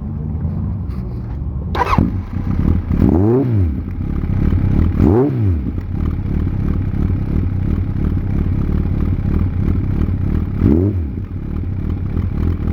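1992 Kawasaki Zephyr1100's air-cooled inline-four idling through its exhaust. The throttle is blipped about four times, each rev rising quickly and falling back to idle: a quick sharp one about two seconds in, two more soon after, and another near the end.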